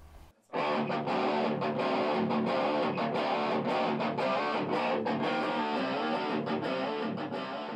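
Electric guitar played through an amp: a quick, busy run of picked notes that starts about half a second in, with no bass or drums under it.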